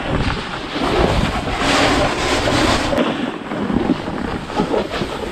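Wind buffeting the bare microphone of a GoPro Hero 7 Black while snowboarding, a loud gusting rumble and hiss: the camera has no foam wind cover on it.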